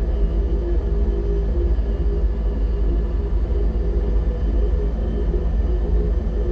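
Sci-fi reactor ambience: a steady deep machine hum and rumble with several sustained low tones layered over it.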